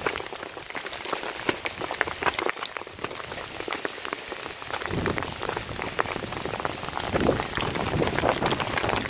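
Small pea-sized hail pellets falling and hitting, a dense run of tiny ticks like heavy rain. A low rumble joins about halfway through.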